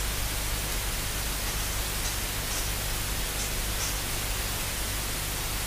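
Steady hiss, with a few faint, irregular snips of scissors trimming loose threads.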